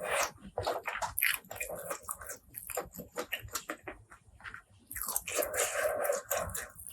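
Close-miked eating sounds: chewing and crunching food, with many quick clicks, then a longer continuous noisy sound about five seconds in.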